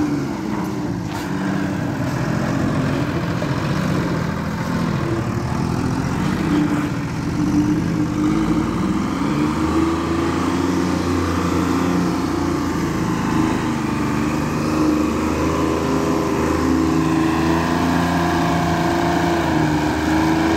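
Single-drum road roller's engine running steadily as the machine drives over bare soil to compact it, its pitch wavering a little as it moves and turns.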